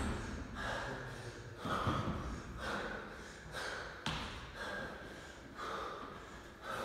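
A man breathing hard in short gasps about once a second while doing a burpee, with a sharp thud about four seconds in as his body meets the floor.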